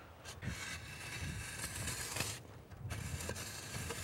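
A shovel scraping and cutting into loose dirt in faint, irregular strokes.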